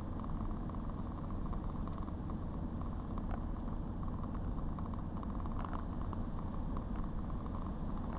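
A car running, a steady low rumble with an even hiss over it.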